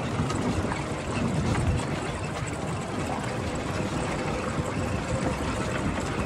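A golf cart driving along: steady ride noise with a low, uneven rumble and a faint steady hum.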